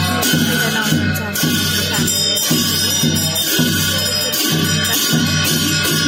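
Tibetan Buddhist ritual music played by monks: gyaling shawms sounding sustained reedy notes over cymbals, keeping a steady beat of about two strokes a second.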